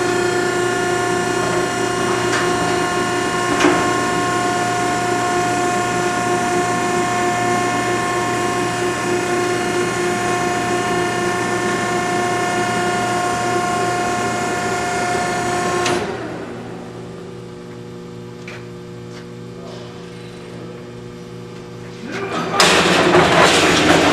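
Selco V5R vertical baler's 10-hp three-phase electric motor and hydraulic pump running a pressing stroke in automatic cycle: a steady whine with several tones. About two-thirds of the way through it drops suddenly to a quieter, lower hum, and near the end a loud clatter starts.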